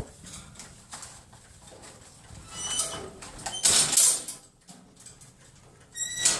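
Metal cage doors being banged by a pet animal: sudden clanks with a short metallic ring, one about three seconds in and another near the end, with lighter knocks between.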